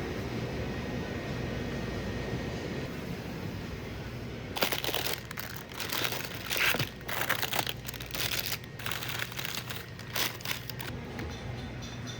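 Grocery packaging being handled, crinkling and rustling in an irregular run of sharp crackles from about four and a half seconds in, over a steady low background hum.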